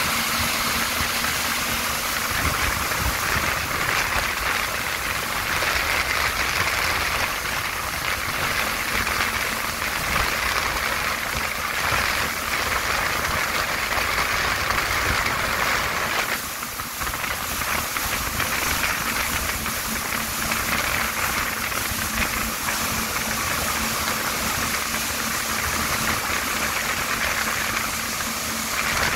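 Yamaha VX1100 personal watercraft's four-stroke engine running steadily at towing speed, mixed with the rush of its jet wake and spray. There is a brief drop in level about halfway through.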